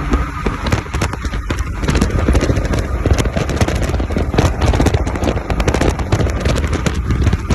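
Turbocharged Lexus SC300 with its 1JZ-GTE engine, a low rumble under dense, irregular crackling and popping.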